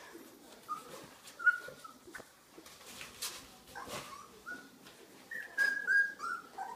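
Border Collie puppies whimpering in short high squeaky whines as they play, a louder run of them near the end, with light scuffles and knocks between.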